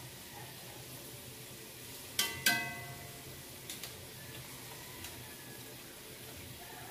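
Metal tongs strike a stainless steel wok twice, sharply, about two seconds in, and the pan rings briefly. Lighter taps follow a little later. Underneath is the low steady sizzle of pork rinds (chicharon) frying in oil.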